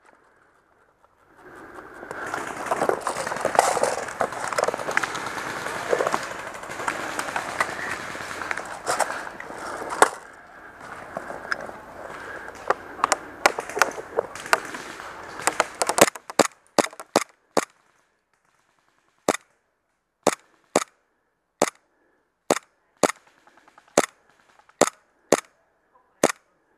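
Airsoft gun firing single shots: sharp cracks, irregular and about one a second, through the last ten seconds or so. Before them comes a long stretch of dense noise with scattered clicks.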